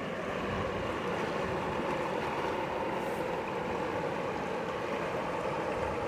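Swollen mountain river rushing steadily, running high.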